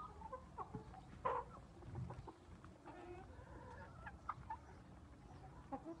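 A flock of black Australorp hens clucking quietly, with short scattered clucks throughout and the loudest one about a second in.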